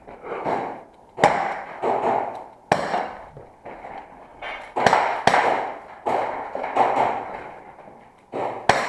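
Airsoft revolver fired shot by shot through a course of fire: a string of sharp cracks, roughly one a second, each followed by a short ringing tail, with two shots in quick succession about five seconds in and again near the end.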